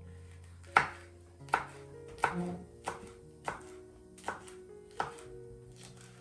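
Kitchen knife chopping a tomato on a wooden cutting board: about seven sharp knocks at an even, unhurried pace, with soft background music under them.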